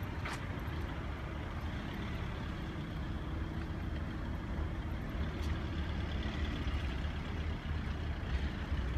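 Steady low rumble of outdoor background noise, with a couple of faint clicks.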